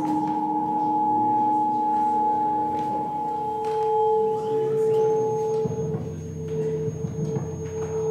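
Acoustic feedback from condenser microphones aimed at active loudspeakers: several steady pure tones ring at once. A low tone gives way to a stronger middle tone about three seconds in, another tone dies out past five seconds, and a thin high whistle joins near the same time.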